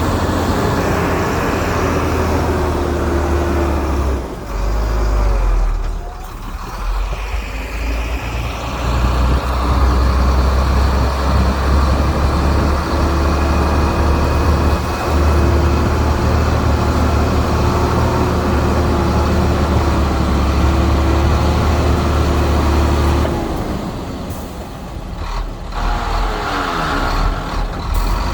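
Heavy diesel earthmoving machinery running steadily with a deep engine rumble, the engine note dropping and rising again twice, about four seconds in and again near the end.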